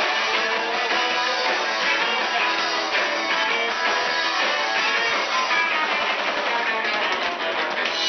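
Live band playing a song with guitars and a drum kit, recorded from the audience.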